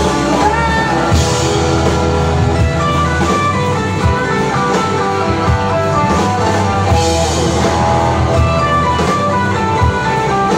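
Live rock band playing an instrumental passage: electric guitar and keyboard-like held notes over a steady drum kit beat, with no vocals.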